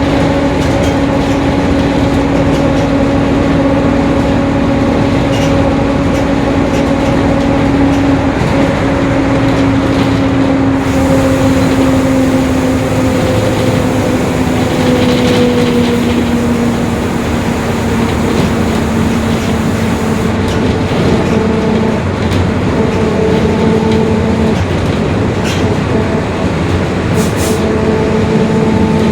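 Mercedes-Benz OF-1721 BlueTec 5 city bus running, its differential howling with a steady whining tone over the road rumble. The whine slides down in pitch partway through as the bus slows, then holds at a lower pitch.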